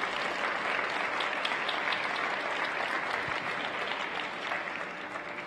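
Audience applauding, dying down toward the end.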